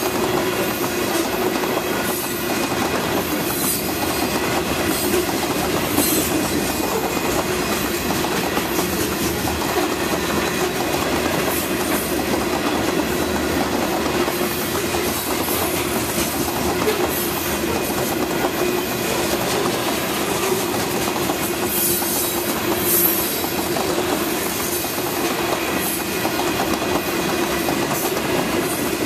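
Freight train of covered hopper cars rolling past at steady speed, the steel wheels running on the rails in a steady, continuous rush of sound.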